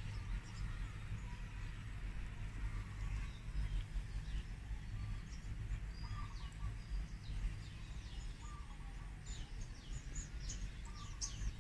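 Small birds chirping and calling, with quick high chirps coming thicker near the end, over a steady low rumble.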